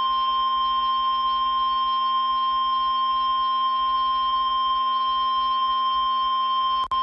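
NOAA Weather Radio 1050 Hz warning alarm tone: a single loud, steady, high-pitched tone announcing a new tornado warning, with a brief dropout near the end.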